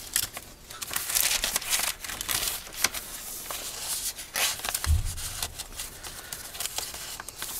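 Paper rustling and crinkling as the pages of a handmade paper journal are turned and paper ephemera cards are slid in and out of a pocket, in quick irregular rustles. A single low thump comes about five seconds in.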